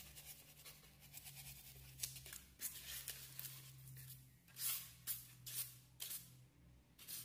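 Utility knife blade cutting through a styrofoam sheet in short scratchy strokes, a quick run of them at first and several louder scrapes of foam about four and a half to six seconds in, over a faint low hum.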